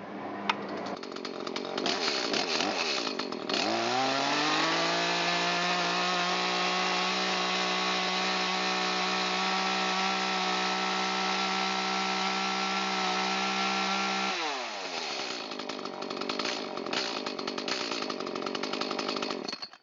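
Echo CS-310 two-stroke chainsaw idling, then opened to full throttle about three and a half seconds in, held steady for about ten seconds, and let back down to idle. This is the saw's high-speed mixture, freshly adjusted, shown as it should run when tuned correctly.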